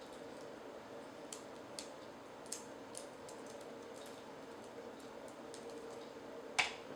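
Light, scattered clicks and taps from a smartphone and its packaging being handled, with one sharper click near the end, over a faint steady hum.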